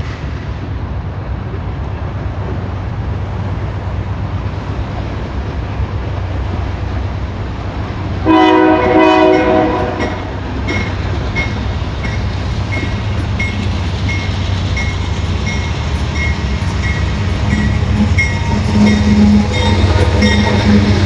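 Union Pacific freight locomotive's air horn sounds one loud blast of about a second and a half, over the steady low rumble of the train. After the blast a faint high ding repeats about twice a second, and the rumble grows louder near the end as the train comes closer.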